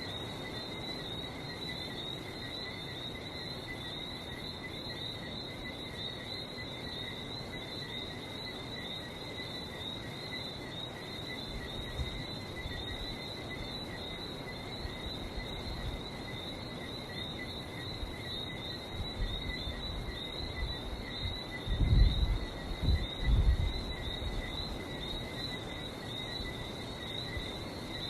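Dense, continuous chorus of whistling frogs, a mass of high chirping whistles with no break. Low, dull rumbles come and go in the second half, the loudest a pair of them a little past the middle.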